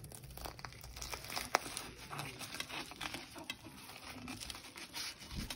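Crisp fried samosa pastry crackling as a knife cuts through it and fingers break it open: a run of small irregular crackles, with one sharper crack about one and a half seconds in.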